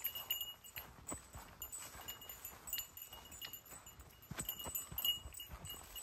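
Footsteps crunching and swishing through dry grass and brush at an irregular pace, with short high metallic jingles in between.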